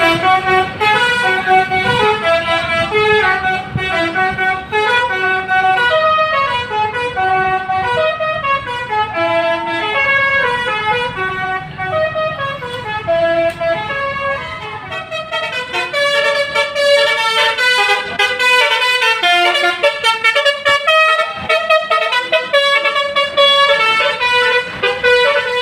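A Basuri V3 multi-tone telolet horn on a bus plays a long, fast melody of stepped notes, often several tones at once, without a break.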